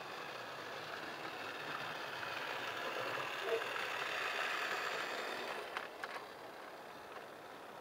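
Electric model train running past close by: the steady running noise of the locomotive's motor and wheels on the track grows as it nears, is loudest as it passes, and fades as the coaches go by, with a few sharp clicks about six seconds in.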